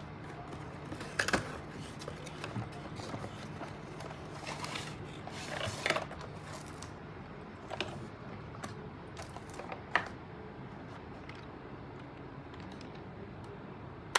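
Scattered light clicks and taps of a plastic toy car being handled, a few at a time and loudest about a second in, near the middle and about ten seconds in, over a faint steady hum.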